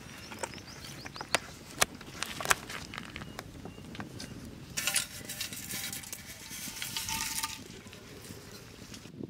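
Whole spices dropped into hot oil in an iron kadai sizzle for about two and a half seconds, starting about five seconds in. Before that, a few sharp crackles as the oil heats.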